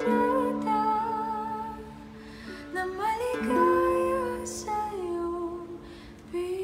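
A woman singing a slow, soft ballad in Tagalog with long held notes, accompanying herself on a small acoustic guitar plucked gently.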